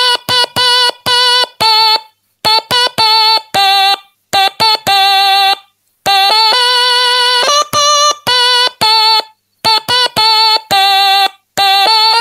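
Stylophone playing a melody: a single buzzy electronic tone with slight vibrato, in short detached notes and some held ones, with a brief pause about five seconds in.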